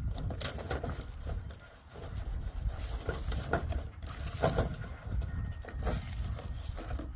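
Irregular scratching and tapping inside a metal rain downspout: a trapped bird scrambling around in the pipe. A low rumble runs underneath.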